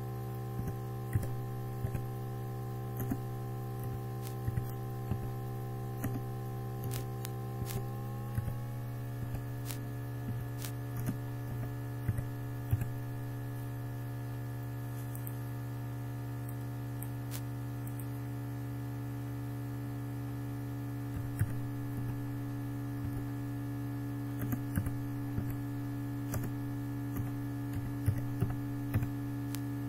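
Steady electrical hum, with runs of computer keyboard keys clicking as text is typed and the odd mouse click. The hum's tone shifts slightly about eight seconds in.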